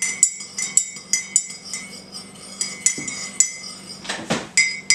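Metal teaspoon stirring coffee in a ceramic mug, clinking against the inside in quick ringing taps, about three a second.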